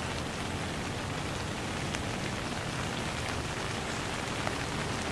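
Steady rain falling, an even hiss with a few scattered drop ticks.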